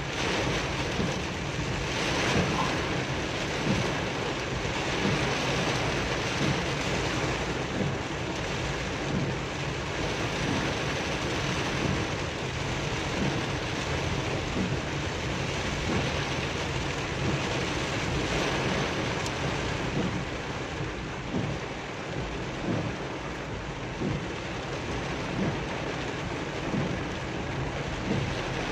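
Heavy rain drumming steadily on a car's roof and windscreen, heard from inside the cabin while the car drives through a downpour.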